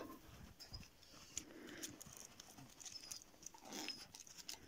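Near silence: a husky's faint shuffling and small clicks in snow, with a brief faint whine about two and a half seconds in.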